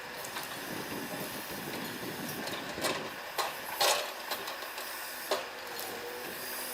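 Mercedes-Benz Actros log truck moving slowly, a steady hissing run with a few sharp knocks and rattles.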